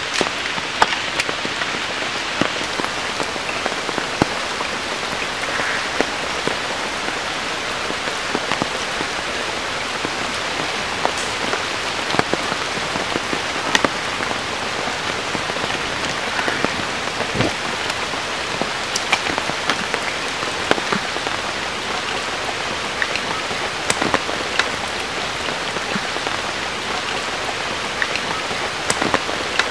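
Steady rain on shallow water and wet mud, an even hiss with scattered sharp ticks.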